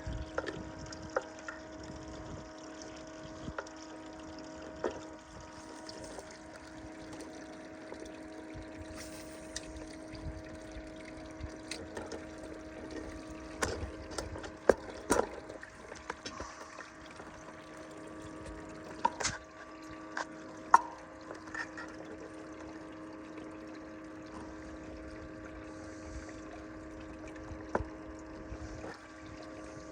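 Water trickling over a steady mechanical hum from a small pump, broken by scattered knocks and clicks, a few sharper ones around the middle.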